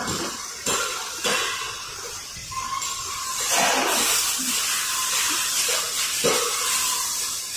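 Paper cup making machines running: a steady hiss with a few sharp clanks.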